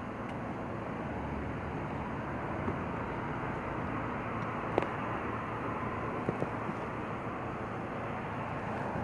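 Steady rumble of road traffic and vehicles, with one short sharp click about five seconds in.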